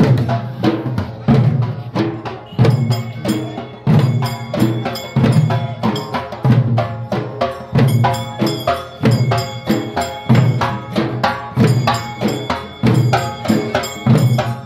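Dollu barrel drums and a troupe of side drums played together in a fast, driving folk rhythm: a deep low stroke about every second and a quarter, with rapid stick strikes in between.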